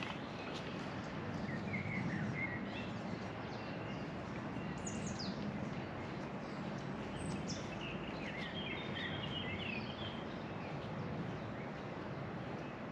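Songbirds chirping and calling now and then over a steady outdoor background hiss, with the calls busiest in the second half.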